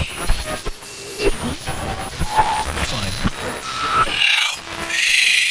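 Horror sound design: scraping, creaking and rasping with scattered clicks and knocks, short wavering tones, and hissing swells near the end.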